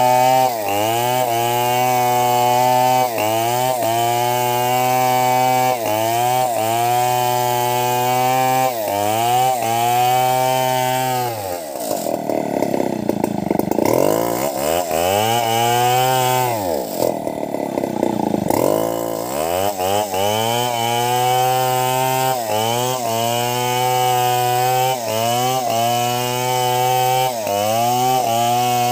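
Two-stroke Stihl chainsaw at full throttle cutting through a log, its engine note dipping and recovering about every second and a half as the chain bites. Midway the engine bogs down deeply twice under the cut, its pitch swooping low before climbing back.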